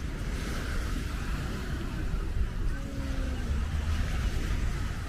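Wind buffeting the microphone with a low, uneven rumble, over a steady hiss of waves breaking on the beach.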